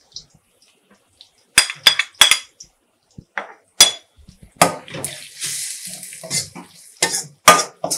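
Sharp clinks of an iron spoon against a metal karahi, then the spoon stirring ground spices into frying onions and garlic, with hot oil sizzling for a couple of seconds about halfway through.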